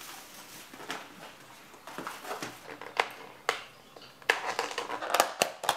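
Thin plastic carrier bag rustling as it is untied from stacked disposable takeout boxes, then the boxes' clear plastic lids crackling and snapping as they are pried open, with a quick run of sharp clicks in the last second and a half.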